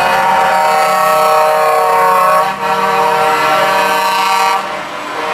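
Truck air horns blowing long, steady chord-like blasts, broken briefly about two and a half seconds in, then cutting off about four and a half seconds in, leaving truck engine noise.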